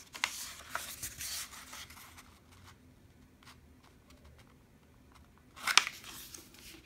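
Origami paper rustling and sliding on a tabletop as a sheet is folded, soft at first, with a sharper, louder crisp rustle about six seconds in as a fold is pressed down.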